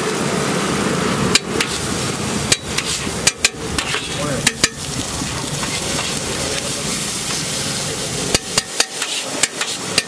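Flat metal spatula scraping and clacking on a large iron tawa as grated egg and masala gravy are mixed, over a steady frying sizzle. The sharp strikes come in clusters, several between about one and five seconds in and more near the end.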